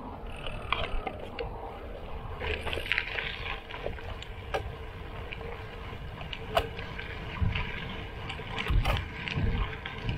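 Gravel bike tyres rolling over a gravel road, small stones crackling and clicking under the tyres, with wind rumbling on the handlebar camera's microphone and a few low thumps from bumps near the end.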